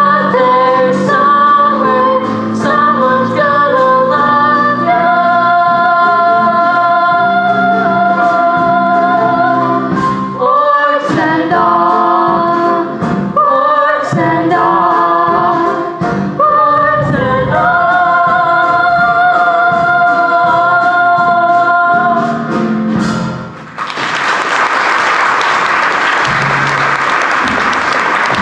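A singer performing a show tune over a backing track, holding long notes. The song ends about 24 seconds in, and the audience breaks into applause.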